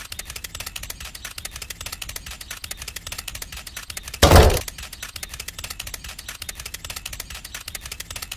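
Fast, steady clicking rattle, as a small geared motor slides a cardboard model's shutter door open. One loud thump about four seconds in.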